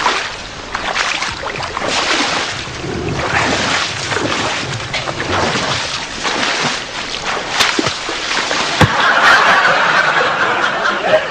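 Water sloshing and splashing around a person wading through a shallow stream, in uneven surges.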